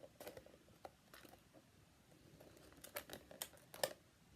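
Faint handling of a trading card box being opened: light crinkling with scattered sharp taps and clicks, several of them close together about three to four seconds in.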